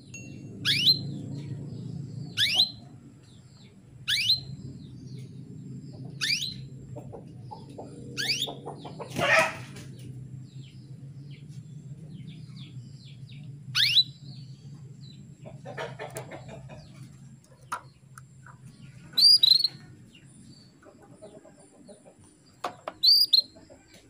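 Female canary calling: sharp, high, down-slurred call notes repeated every couple of seconds, the contact calls a hen gives to draw a male to sing. A louder, rougher sound comes about nine seconds in, and a steady low hum lies under the calls until near the end.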